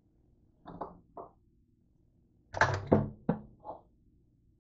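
A few short knocks and thunks as a plastic colander and a bowl of grapes are handled, set down and moved on a kitchen counter. There are two light knocks near the start and a louder cluster about two and a half seconds in.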